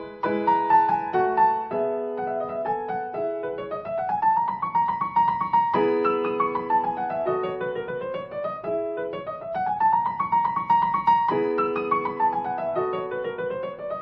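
Background piano music: sustained chords with flowing runs of notes rising and falling.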